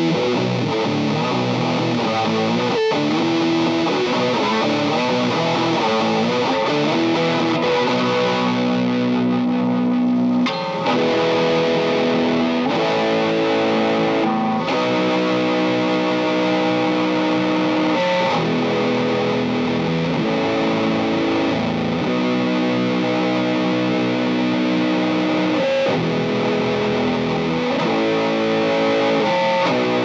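Electric guitar (Fender Coronado II) distorted by a Greer Gorilla Warfare MKII, a RAT-style distortion/fuzz pedal with an LM308 chip, played through a Strymon Iridium amp-and-cab simulator. It starts with quickly moving riffs, then settles into held chords that change every second or two, with one brief break about ten seconds in.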